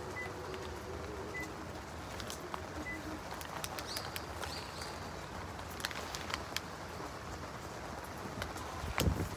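A waffle eaten from its paper wrapper: scattered crinkles of the paper and crisp bites over steady outdoor background noise, with a few short bird calls early on and a low thump near the end.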